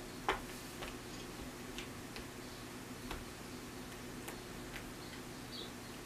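A cat's claws tapping on a tablet's glass screen as it paws at a cat game: scattered, irregular light clicks, the sharpest one about a third of a second in, over a faint steady hum. A faint short squeak comes near the end.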